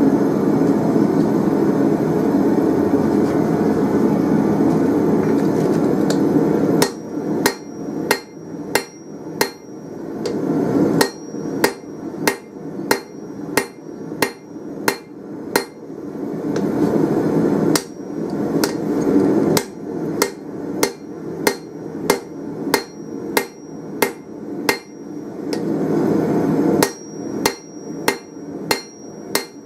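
Hand hammer striking a red-hot round steel bar on an anvil in four runs of quick blows, each blow ringing brightly off the anvil, with short pauses between runs. A steady rushing noise fills the first seven seconds before the hammering starts.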